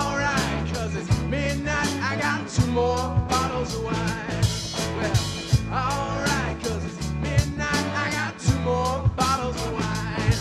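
Live rock band playing an upbeat country-rock song: a drum kit, bass, electric and acoustic guitars, with sung vocals over them.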